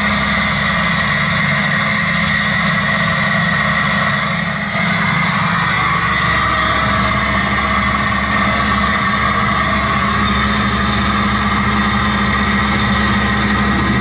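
A vehicle engine running steadily at an even, unchanging pitch.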